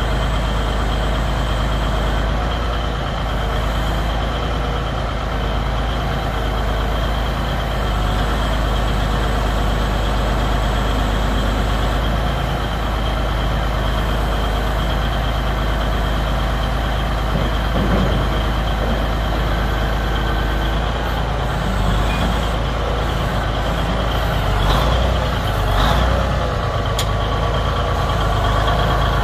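Heavy six-cylinder Cummins diesel of a 1985 Ford 9000 truck running steadily, with a few short sharp sounds near the end.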